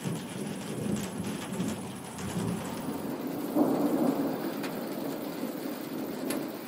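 Thunder rumbling over steady rain, the rumble swelling about three and a half seconds in.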